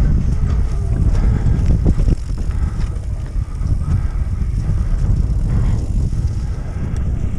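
Mountain bike riding over a trail: tyres rumbling and the bike rattling, with a few sharp knocks near the start and heavy wind noise on the microphone.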